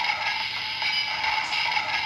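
Kamen Rider DX Sclash Driver toy belt playing its looping electronic standby sound through its small built-in speaker. The sound is steady and thin, with no bass.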